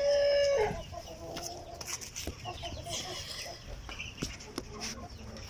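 A long animal cry held at one pitch opens the sound and stops under a second in. Chickens then cluck softly, with a few light clicks and knocks.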